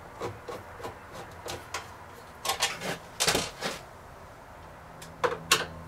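Screwdriver clicking and scraping on the screws and sheet-metal frame of an RV stove as its last mounting screws are taken out. The small knocks are scattered, with a cluster about two and a half seconds in and another near the end.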